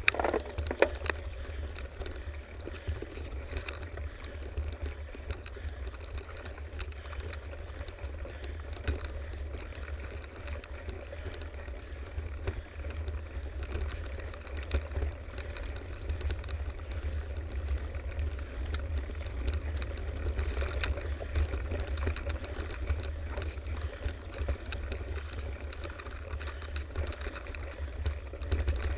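Mountain bike riding along a dirt forest singletrack: a steady low rumble from the tyres and the moving air, with small rattles and knocks as the bike goes over bumps in the trail.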